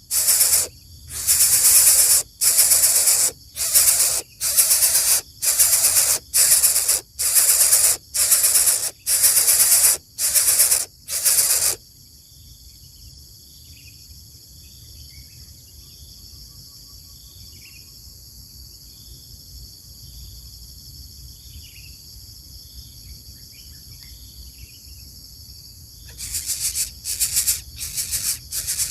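Coucal nestling hissing in repeated bursts about once a second, a snake-like defensive hiss. The hissing stops for a long stretch, leaving a steady high insect drone with faint bird chirps, then starts again near the end.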